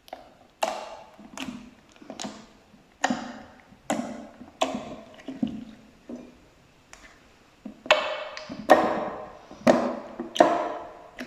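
Slime being pressed and squeezed, giving a series of sharp wet squelches and pops, roughly one a second.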